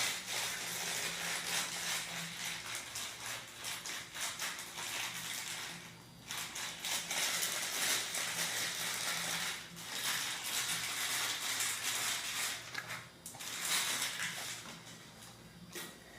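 A dog chewing and crunching cream cracker biscuits: a dense run of crisp crackles, with short pauses about six and ten seconds in. A faint steady hum runs underneath.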